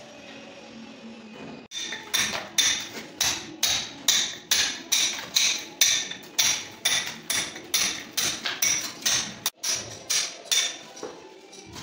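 Hammer and steel chisel chipping plaster and concrete off a masonry wall in steady, regular blows, about two to three a second, each strike with a bright metallic ring.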